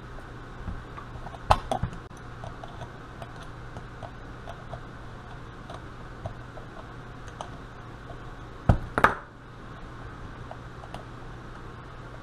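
Small metal clicks and ticks from hand tools and the parts of a Carter mechanical fuel pump being handled and screwed together during reassembly, with louder clacks about a second and a half in and again about nine seconds in, over a steady low hum.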